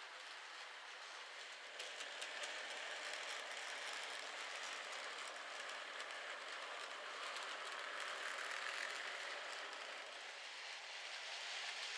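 N-gauge model trains running on the track: a steady whirring hiss of small electric motors and wheels on rails, with faint clicks over the track. It gets a little louder about two seconds in.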